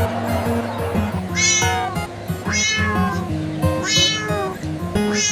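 Cat meowing four times, about a second apart, each call falling in pitch, over background music.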